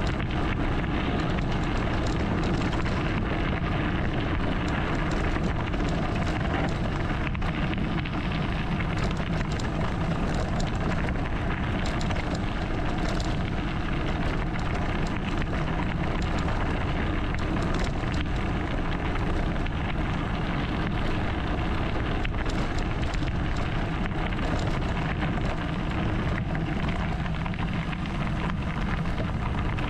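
Mountain bike rolling down a loose gravel track: a steady crunching hiss of knobby tyres on stones, flecked with small clicks and rattles, mixed with wind rumbling on the camera microphone.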